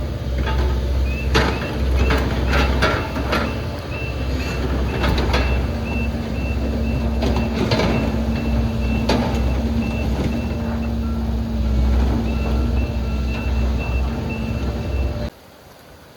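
A low engine rumble with a steady hum, and short high electronic beeps repeating about one and a half times a second, broken by a few knocks. The sound cuts off suddenly near the end.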